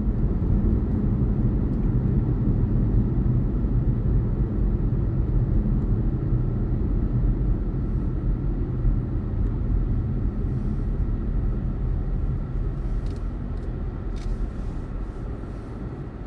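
Steady low engine and road rumble of a car heard from inside the cabin while driving, easing off gradually near the end.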